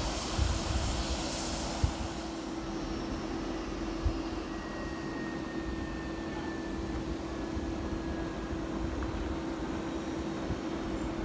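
Boeing 757-200 jet engines running at low power during taxi, a steady drone with a hum and a faint falling whine midway. Wind buffets the microphone in the first couple of seconds.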